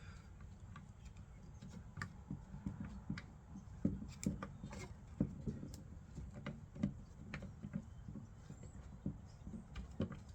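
Faint, irregular light clicks and taps of small metal parts being handled, as screws holding an ignition control module to a distributor are threaded in by hand.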